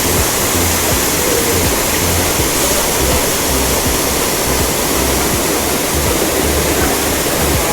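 Waterfall rushing steadily: an even, continuous noise of falling water, with an uneven low rumble beneath it.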